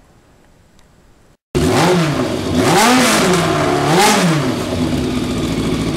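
Motorcycle engine revved three times in quick succession, the pitch climbing and dropping back each time, then settling to a steady idle. It starts abruptly about a second and a half in, after faint room tone.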